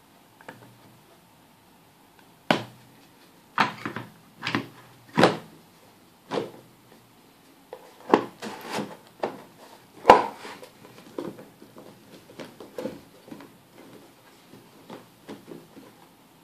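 Laser-cut plywood puzzle box being handled: wooden knocks, clunks and scrapes as the lid is fitted and twisted and a numbered side disc is turned. The separate knocks are loudest in the first ten seconds or so, then lighter clicks follow.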